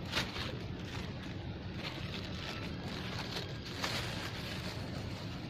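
Wind buffeting the microphone, a steady low rumble, with a few short crackles about 0.2 s and 3.8 s in.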